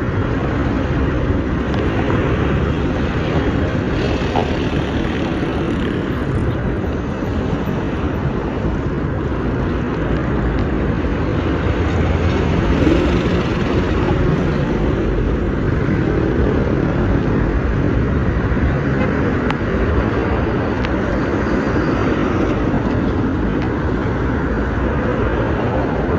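Steady low rumble of a vehicle in motion, even throughout with no clear engine tone.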